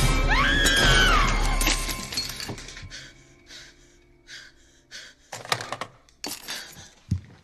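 Film soundtrack: a woman's scream that rises and falls, over a loud crash with breaking sounds and tense orchestral score. It dies away into a few scattered knocks and thuds.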